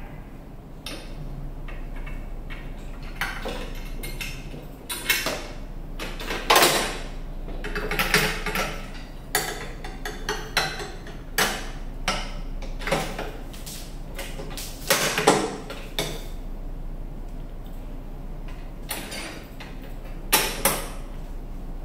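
Irregular clicks, knocks and rattles of a lawnmower's steel handle, bolt and plastic clamping knob being handled and fitted into the mower's handle bracket, over a steady low hum.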